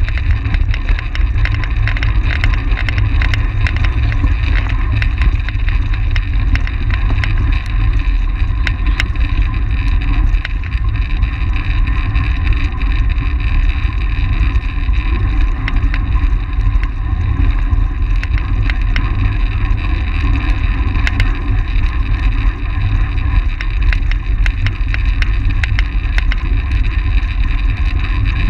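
Wind rushing over the microphone of a camera on a track bicycle at racing speed, a steady heavy low rumble, with the whir of the tyres and drivetrain on the velodrome track and many small ticks and rattles throughout.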